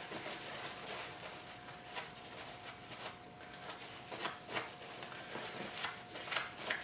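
Paper towel rustling and crinkling in irregular scrunches as excess glue is wiped off a plastic magnet mount, loudest near the end. A faint steady whine runs underneath.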